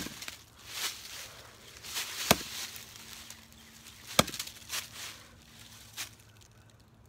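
An axe chopping into a tree trunk: three sharp strikes about two seconds apart, with lighter knocks in between.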